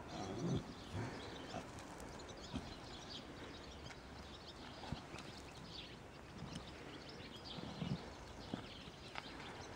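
A Haflinger horse rolling in a sand arena: dull thuds and scuffs of its body and legs in the sand, the loudest about half a second in and about eight seconds in. Birds chirp faintly in the background.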